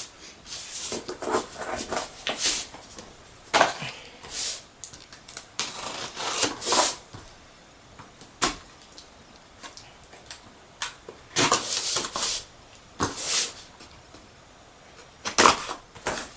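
Cardboard box and packaging being handled and opened: scattered rustles, scrapes and light knocks with quiet gaps between them.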